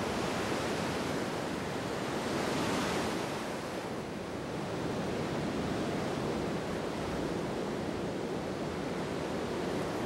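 Whitewater river rapids rushing steadily, swelling a little louder about two to three seconds in.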